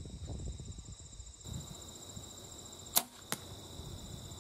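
A Bear Carnage compound bow shot at a 20-yard target: two sharp cracks about a third of a second apart, about three seconds in, the first the louder, the bow's release and the arrow striking the cardboard deer target on hay bales. Crickets chirp steadily underneath.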